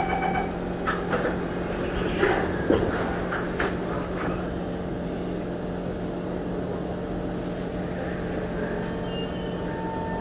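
Singapore MRT train doors closing: the last of the door-warning beeps, then a run of knocks and thumps over a few seconds as the sliding doors shut, followed by the steady hum of the standing train.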